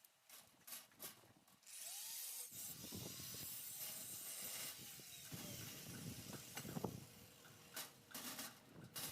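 Faint workshop tool noises: a few sharp clicks and knocks, then a steady hiss from about two seconds in, with more clicks near the end.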